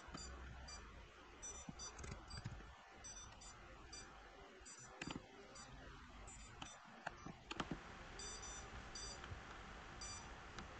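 Faint, high-pitched electronic beeping in short clusters that repeat every second or so, with a couple of sharp clicks.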